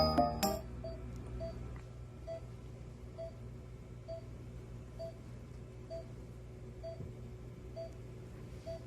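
Faint short electronic beep repeating evenly about once a second over a steady low hum, just after a music jingle fades out in the first half second.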